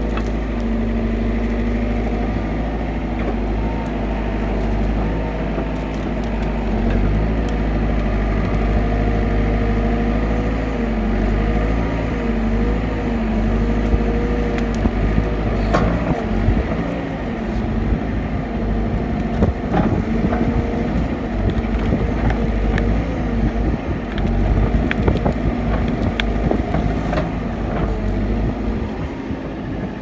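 Backhoe's diesel engine running under load, its pitch dipping and rising as the hydraulics work. In the second half, sharp cracks and crunches of sticks and mud as the bucket breaks into a beaver lodge.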